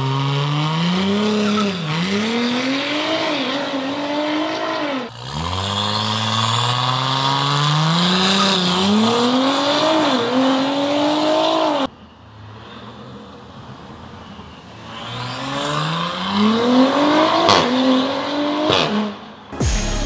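Modified Audi SQ5's turbocharged engine, running a catless downpipe with the rest of the exhaust stock, accelerating hard. The revs climb and drop back through quick upshifts over several separate pulls, with a quieter lull in between.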